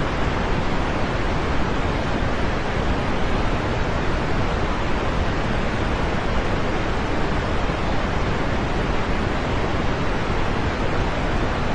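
Steady rain, an even hiss that holds constant with no separate drops, thunder or pauses.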